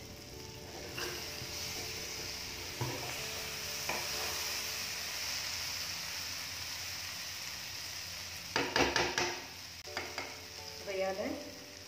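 Okra masala sizzling in a metal kadai while a spatula stirs it, with a few short scrapes against the pan and a louder flurry of scraping about nine seconds in.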